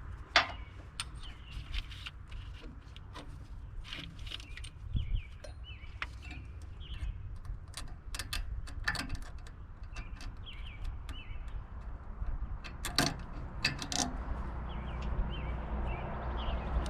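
Scattered sharp clicks and knocks of hand work, fitting a rubber-insulated clamp onto an air hose and its support, with a bird chirping over and over in short notes.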